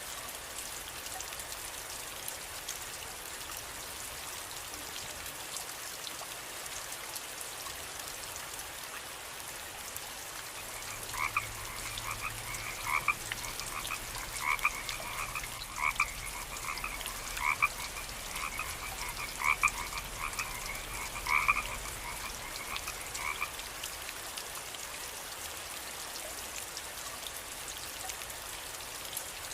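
Steady rain falling. From about ten seconds in, a frog croaks in a run of calls roughly a second apart for about twelve seconds, then stops.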